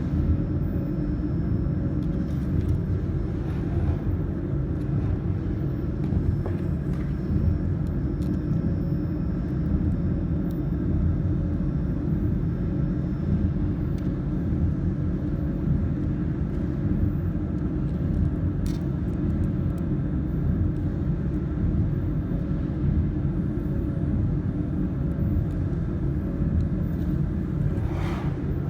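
Steady low rumble and hum with a few faint steady tones, broken by an occasional faint click.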